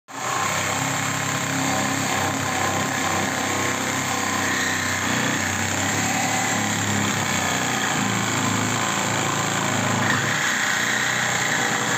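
Corded reciprocating saw running steadily, its blade sawing through the sheet-metal roof pillar of a car body with a rough, buzzing rasp. A higher whine comes in about ten seconds in.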